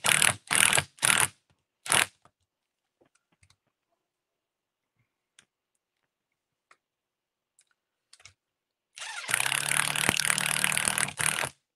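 Electric screwdriver whirring in four short bursts in the first two seconds, then running for about two seconds near the end, driving in the screws that hold the rear suspension block to an RC buggy chassis. Faint clicks of small parts being handled fall in between.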